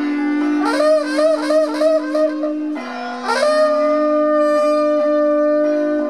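A wind instrument playing a melody with wavering, ornamented phrases over a steady drone; about halfway through it settles onto one long held note.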